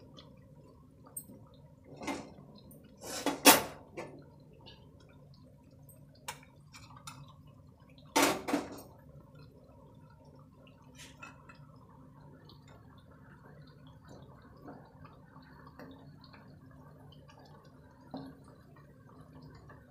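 Tikiyas frying in oil in a metal kadhai, a faint steady bubbling sizzle. It is broken by a few loud clinks and scrapes of tongs and a spatula against the pan: once about two seconds in, the loudest about three and a half seconds in, another about eight seconds in, and a small one near the end.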